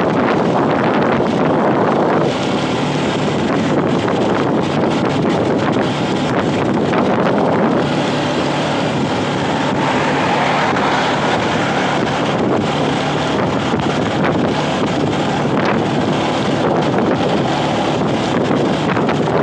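Wind buffeting the microphone of a vehicle moving at speed on an open road, with its engine running steadily underneath.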